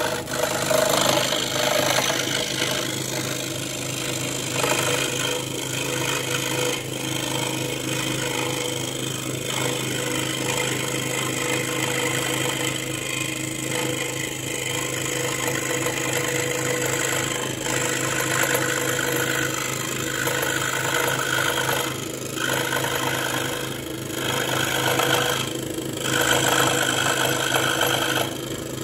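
Ryobi 405 mm scroll saw running at full speed, its reciprocating blade cutting a curve through plywood: a steady motor hum with the rasping buzz of the cut, dipping briefly a few times near the end.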